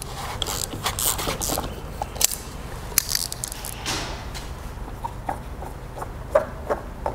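Small clicks, knocks and scrapes of a filter-removal tool and gloved hands working the spin-on oil filter loose on a Honda four-stroke outboard, with a cloth rag rustling. Near the end comes a run of light ticks a few tenths of a second apart as the filter is turned by hand.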